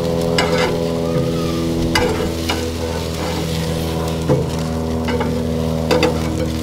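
Food sizzling on a barbecue, with a few short clicks and scrapes of a cooking utensil against the grill. A steady low mechanical hum runs underneath.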